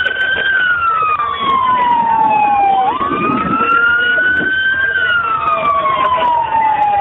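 Police car siren on a slow wail: one loud tone sweeping down, up and down again in pitch, each sweep taking a couple of seconds.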